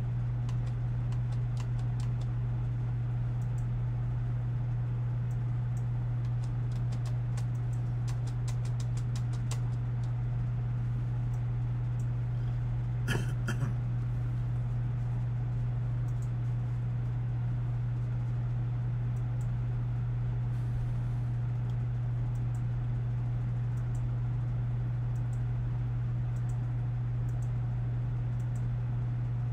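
Steady low hum on the recording throughout, with scattered runs of computer mouse clicks, thickest in the first ten seconds, and one brief vocal sound about thirteen seconds in.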